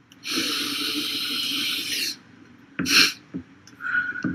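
A man snorting a line of powder up through a rolled-up banknote. One long sniffing inhale of about two seconds, then a short, sharp sniff about three seconds in.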